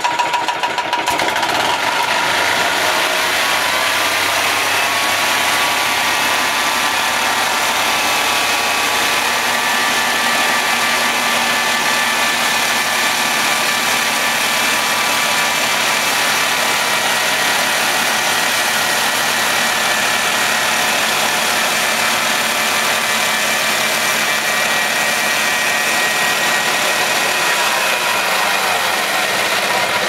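Homemade bandsaw mill running: its small gasoline engine drives the band steadily under load as the blade cuts the first bark slab off a hickory log. The engine note sags slightly a few seconds in as the blade bites into the wood and shifts again near the end as the cut finishes.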